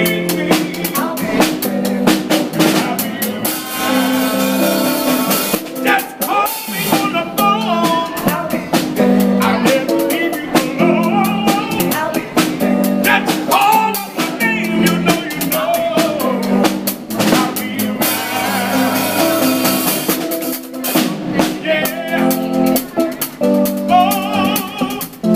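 Live street band playing: a steady beat on a snare drum and cymbal with an electric guitar, and a man singing over it.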